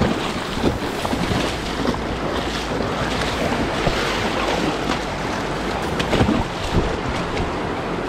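Fast mountain river rushing through rapids, with splashing as boots wade through the shallows and a few sharp knocks. Wind noise rumbles on the microphone.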